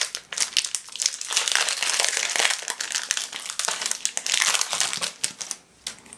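Foil booster-pack wrapper of a Pokémon trading card pack crinkling and tearing as it is opened by hand; the crinkling stops a little before the end.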